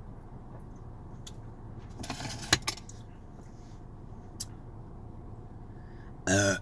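Mouth and eating noises from a person eating a burrito. Near the end comes a short, loud, low-pitched burp lasting about a third of a second. About two seconds in there is a brief rustle with a sharp click, like the burrito's wrapper being handled.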